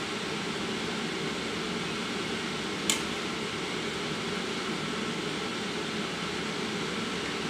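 A steady whirring hum, with one sharp metal clink about three seconds in as a steel slotted spatula knocks against a frying pan of simmering curry.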